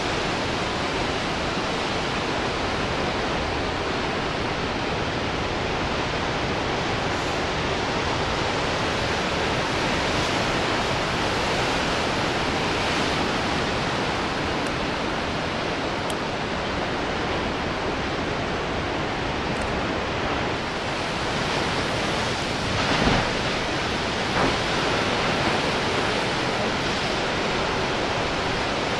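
Ocean surf breaking and washing around rocks: a steady wash of churning white water, with two brief louder moments near the end.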